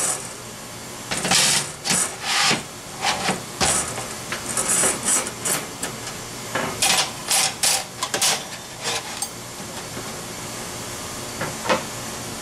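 Thin steel grill panels being stacked into a stainless steel pan, with many clanks and scrapes of metal on metal, busiest through the first nine seconds. Near the end a wire cooking grate rattles as it is set into the pan.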